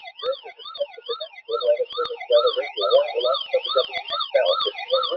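Electronic warbling alarm tone received over radio, its pitch sweeping up and down about twice a second, with choppy lower tones underneath.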